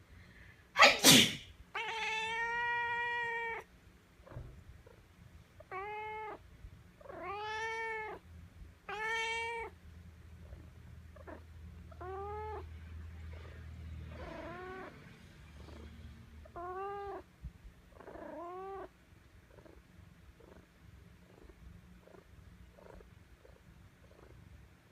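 A person sneezes once, loudly, and a cat meows back at it repeatedly. The cat gives about eight meows spread over the next quarter-minute, the first one long and drawn out and the rest short.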